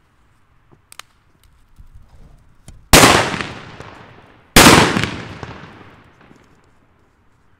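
Two Hua Liang Super Böller 3 firecrackers, loaded with flash powder, going off about a second and a half apart. Each is one sharp bang with a long echoing tail. A few faint pops and clicks come before them.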